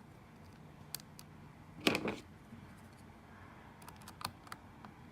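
Small sharp clicks and taps of a screwdriver and screw at the SSD mount as the drive's retaining screw is put in, with one louder knock about two seconds in.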